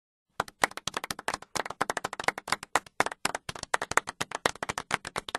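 Applause sound effect: a small group of people clapping, starting suddenly out of dead silence about half a second in.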